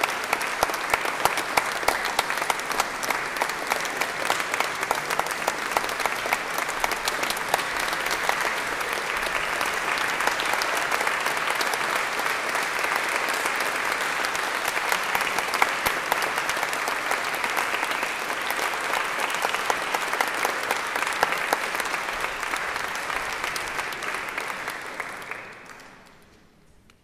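Audience applauding steadily with many hands clapping, dying away about a second before the end.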